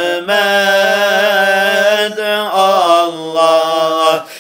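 Sufi hymn (ilahi) in Turkish: a voice sings a long, wavering melismatic line over a steady low drone, pausing briefly between phrases.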